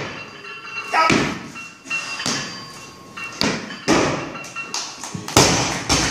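A loaded barbell with Eleiko bumper plates is dropped from overhead and hits the wooden lifting platform with a loud thud near the end, then bounces. A few shorter, sharp sounds come before it.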